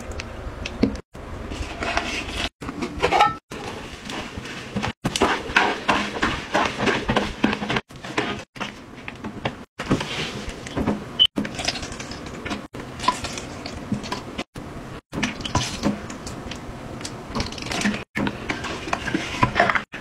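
Liquid cleaners being poured and squeezed from plastic bottles into the water of a toilet bowl, splashing and gurgling. It comes in short stretches, each cut off abruptly every second or two.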